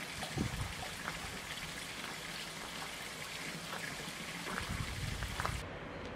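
Steady outdoor background hiss, like trickling or running water, with a few faint ticks. Near the end it changes abruptly to a duller, quieter-topped ambience.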